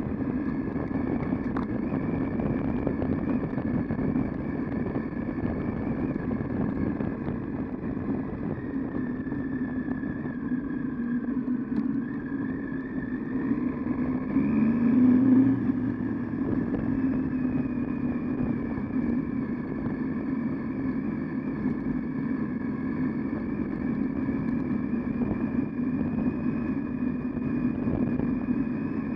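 Triumph Tiger 800XC's three-cylinder engine running steadily under way, with a brief burst of throttle about halfway through, the note rising, getting louder, then settling back.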